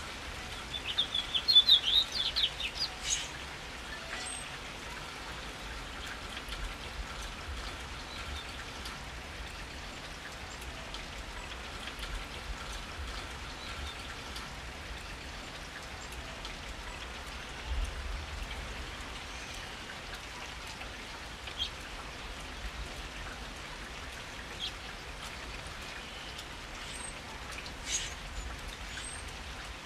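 Steady rain falling on pavement and foliage, with now and then a louder drip. A bird chirps a quick run of high notes near the start, the loudest sound.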